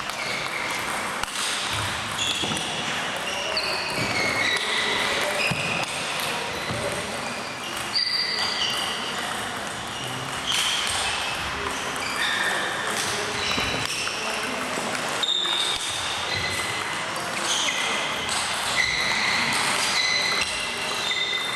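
Table tennis balls bouncing on tables and struck by bats across a busy hall of several tables: many short, high pings overlapping at irregular intervals, with echo in the large room.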